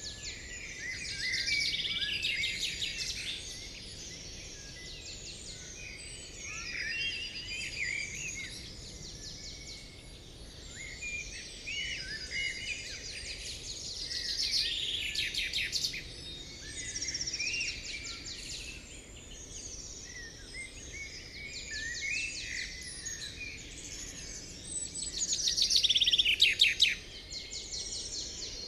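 Forest songbirds singing and chirping in repeated phrases, some with fast trills of rapidly repeated notes, the loudest bout near the end.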